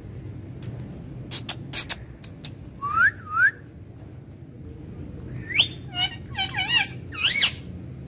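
Indian ringneck parakeet whistling: two short rising whistles, then a quick run of wavering, warbling whistles a couple of seconds later. A few sharp clicks come before the whistles.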